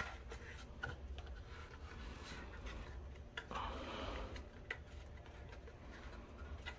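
Faint rubbing and scattered small clicks of hands handling kite line on a spool, over a low steady room hum.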